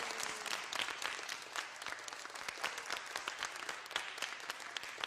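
An audience applauding, a dense patter of many hands clapping, as the last held notes of music fade out in the first half-second.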